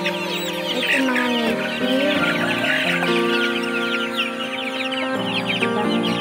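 Chickens clucking and calling over instrumental background music with held, changing notes.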